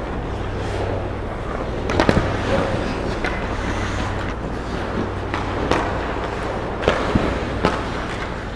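Ice hockey play at the goal mouth: skate blades scraping the ice and sharp clacks of sticks and puck, a cluster of them about two seconds in and several more single ones later, over a steady low hum.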